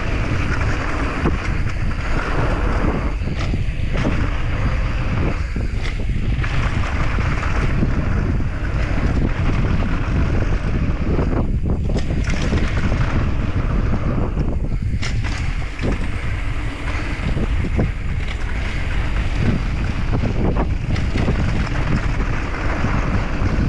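Wind buffeting the microphone of a mountain bike's onboard camera on a fast downhill run on a dirt trail, with scattered clicks and knocks from the bike rattling over bumps.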